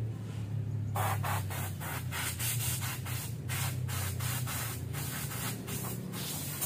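Compressed-air blow gun blasting brake dust off a minibus's exposed brake shoes and hub in a quick series of short blasts, starting about a second in, about two or three a second.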